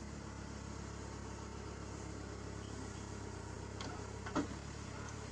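An engine idling steadily with a low hum. About four seconds in there are two short knocks, the second louder.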